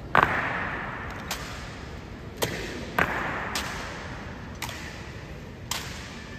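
Sharp, echoing stamps and knocks from a navy honor guard's drill, about seven at uneven intervals. The loudest comes just after the start and another strong one about three seconds in, each ringing on in the hall.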